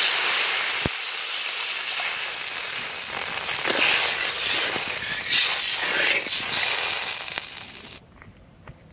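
Water poured into hot fried spice paste in a wok, sizzling and hissing loudly. The sizzle cuts off suddenly about eight seconds in.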